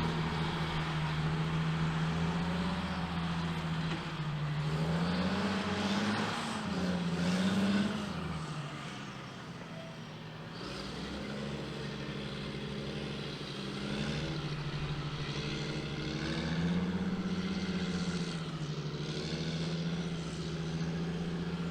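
Caterpillar 627G twin-engine scraper's diesel engines running under load, engine speed rising and falling several times. The sound eases off for a few seconds past the middle, then builds again.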